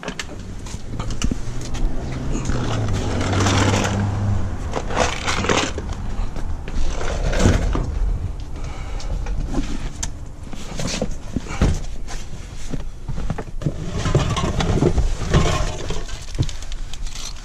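Handling noise: a plastic bag and a cardboard drinks box crinkling and rustling as they are grabbed and moved, with irregular scrapes and knocks and a low rumble in the first few seconds.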